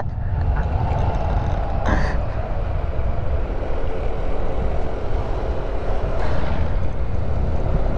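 Motorcycle ridden along a road: steady rumble of wind buffeting the rider's microphone, with the engine running underneath.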